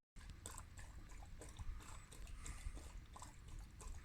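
A Great Pyrenees chewing and gnawing, faint irregular crunches and clicks.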